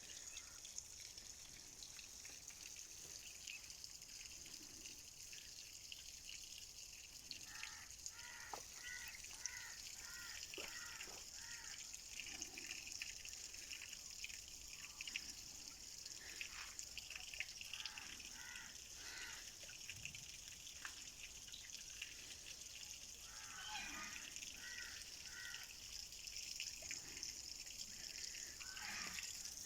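Birds calling in short runs of repeated pitched notes, about two a second, several times over, above a faint steady hiss that could be trickling water.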